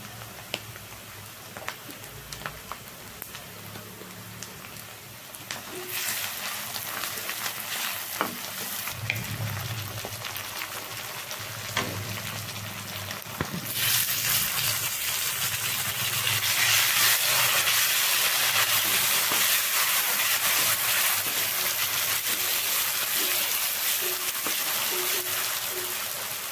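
Food frying in hot oil in a pan, with scattered light clicks of stirring. About halfway through, the sizzling suddenly grows much louder and stays loud.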